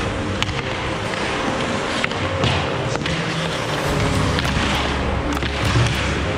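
Ice hockey skate blades scraping and gliding on rink ice, with scattered sharp clicks of sticks and puck.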